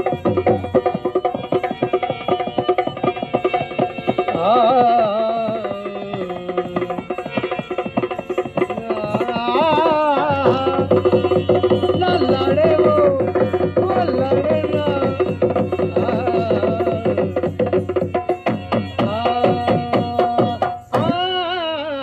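Live Kalbeliya folk music: a dholak barrel drum playing a fast, dense beat under a held harmonium drone, with a voice singing through the middle. The music drops out briefly near the end before a last sung phrase.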